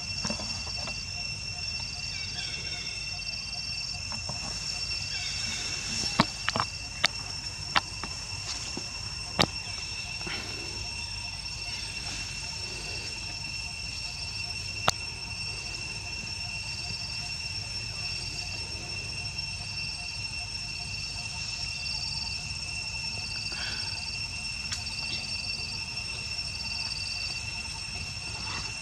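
Insects calling continuously: a steady high-pitched drone with a shorter chirp repeating about every second and a half. A few sharp clicks stand out about six to ten seconds in and once more around fifteen seconds in.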